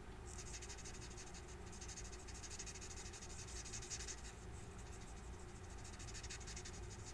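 Faint scratching strokes of a Stampin' Blends alcohol marker's tip on cardstock during colouring, coming and going with each stroke.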